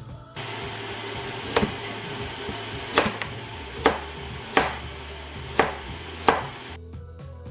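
Kitchen knife chopping carrots on a plastic cutting board: six sharp knocks, roughly a second apart, over a steady hiss.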